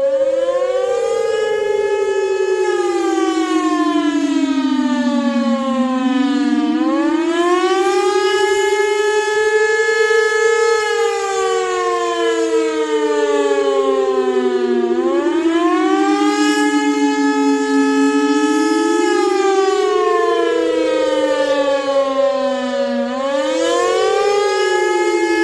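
Warning siren wailing for an Amber Alert: two tones slide slowly up and down, about eight seconds per rise and fall, and cross over each other.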